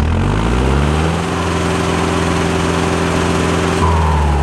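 IHC 745 XL tractor's diesel engine revved up over about a second, held at high revs, then let back down near the end. A turbo whistle falls away as the revs drop.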